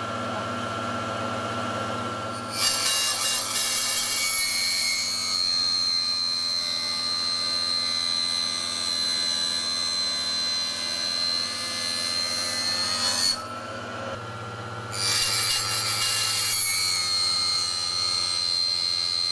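Small tabletop table saw running, its blade cutting through thin planed-down masonite board: a high, steady cutting whine starts a few seconds in and lasts about ten seconds. It drops back to the motor's hum for a moment, then a second cut starts about fifteen seconds in.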